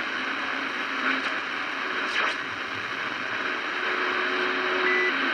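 Radio receiver static: a steady band-limited hiss of band noise between transmissions, with a couple of faint clicks and, near the end, faint steady whistles from distant carriers.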